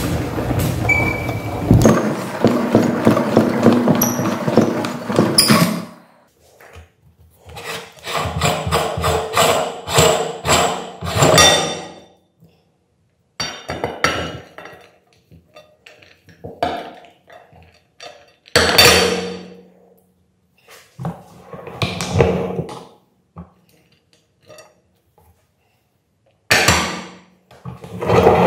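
Metal meat grinder being taken apart by hand: scattered clinks, knocks and scrapes as the locking ring, cutting plate and knife come off and are set down in a glass bowl, in short clusters with pauses between.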